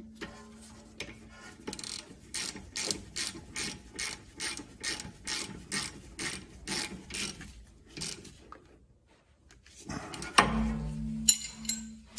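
Ratchet clicking in a steady run of strokes, about three clicks a second, as a brake caliper bolt is run down. About ten seconds in comes a louder clunk and rattle.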